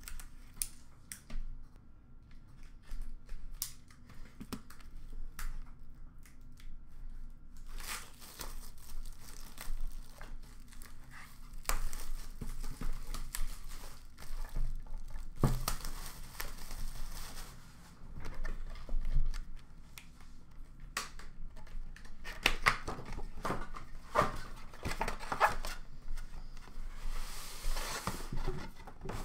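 Plastic shrink wrap on a sealed trading-card box being slit with a small handheld cutter and peeled off, crinkling and tearing in several stretches, with light clicks and knocks as the box is handled and turned.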